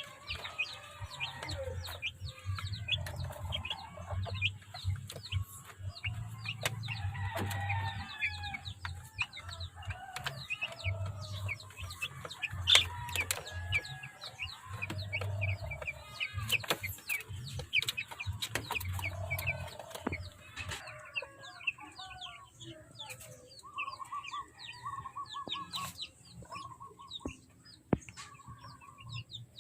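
A flock of young native gamefowl chickens peeping and clucking, with many short high peeps throughout and a run of quickly repeated mid-pitched calls near the end.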